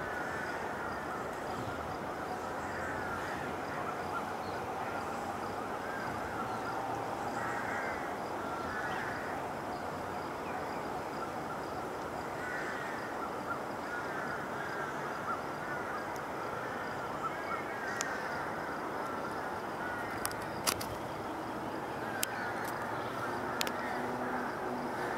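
Many birds chirping and calling at once over a steady background hiss, with a few sharp clicks in the last several seconds.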